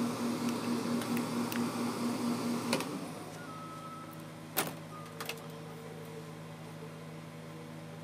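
Steam iron pressing fabric: a steady hiss of steam with a pulsing buzz, which cuts off with a click about three seconds in. After that a faint steady hum continues, with a single sharp tap a little later.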